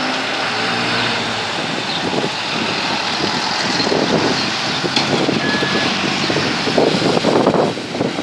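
Diesel city bus engine running as the bus turns and passes close by, with road noise from its tyres. Gusts of wind buffet the microphone near the end.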